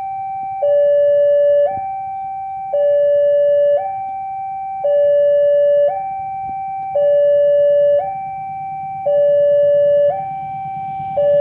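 Railway level-crossing warning alarm sounding its alternating two-tone: a higher note, then a lower, louder note, each about a second long, repeating steadily as a train approaches. Near the end the rumble of the oncoming train starts to rise under it.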